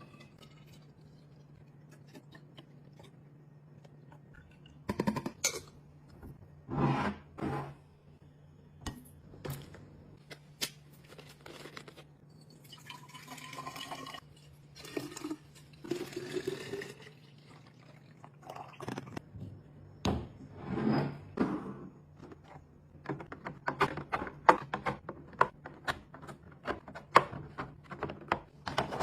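Liquid being poured and filling a container, among the knocks and clicks of containers being handled and set down, over a steady low hum. The handling knocks come thickest near the end.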